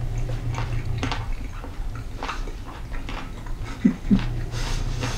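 A person chewing a mouthful of hot grilled octopus seasoned with salt and pepper, with irregular soft mouth clicks and smacks over a steady low hum. There are two brief louder low sounds about four seconds in.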